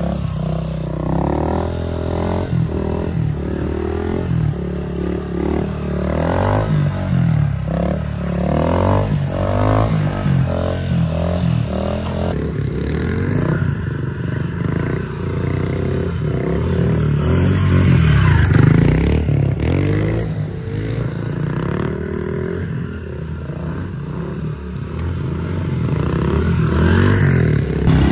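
Small petrol dirt bike engine running under throttle as the bike is ridden, rising and falling in loudness, loudest about two-thirds of the way in and near the end.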